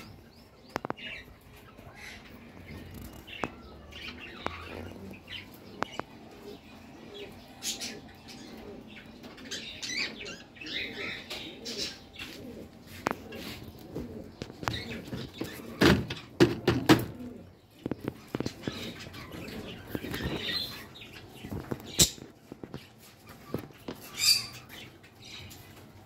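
Budgerigars in an aviary: wings flapping now and then, the loudest flurry a little past the middle, with short, scattered chirps and light clicks and knocks.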